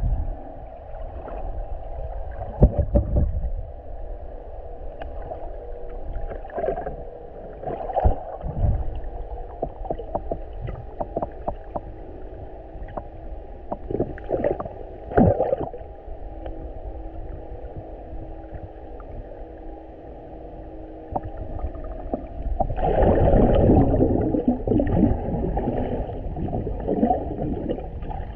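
Muffled water sound picked up by a GoPro in its housing underwater: steady sloshing and gurgling, scattered small clicks and knocks, and a louder swell of sloshing about 23 seconds in.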